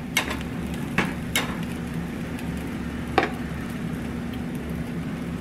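A pancake frying in oil in a non-stick frying pan, sizzling steadily, with four short taps of a spatula against the pan in the first few seconds.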